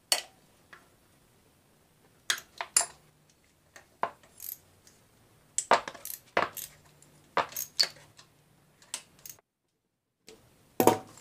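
A wrench clinking on the carburetor's mounting bolts and the metal around them as the bolts are worked loose: scattered sharp metallic clicks and taps at no steady rhythm.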